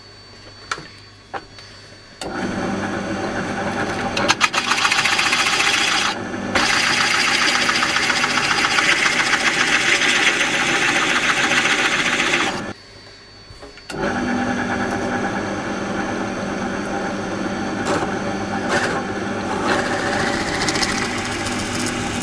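A restored pillar drill (drill press) runs while a Forstner bit bores into a wooden board. Its motor holds a steady hum under the rasp of the cutting. It starts about two seconds in, drops out for a moment a little past the middle, then runs again until just before the end.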